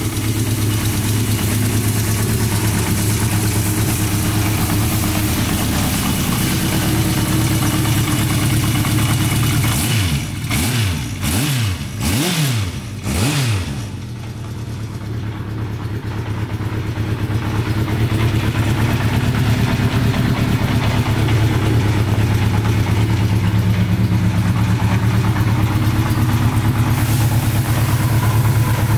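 1988 Kawasaki GT750's air-cooled inline-four engine idling steadily. About ten seconds in it is revved four times in quick succession, then it settles back to idle.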